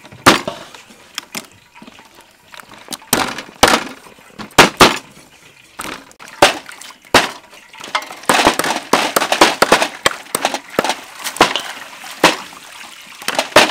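Irregular sharp knocks of knives cutting raw chicken wings on wooden chopping blocks, with clatter from handling the pieces. The knocks come thicker and faster in the second half.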